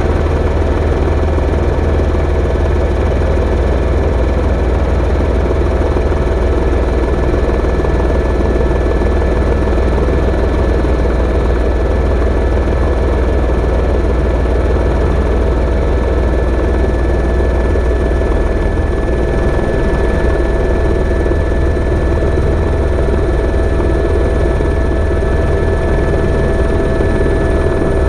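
Helicopter in flight: a loud, steady drone of rotor and engine with a few constant whining tones above it.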